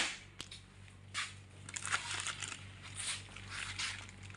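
Plastic wrapping crinkling in short rustles as the bagged pH meter parts are handled, after a sharp knock right at the start.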